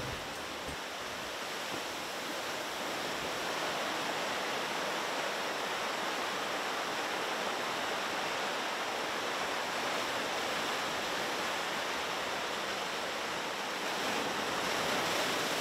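Ocean surf breaking and foaming over a shore of rounded black pebbles: a steady rush of waves that swells a little near the end.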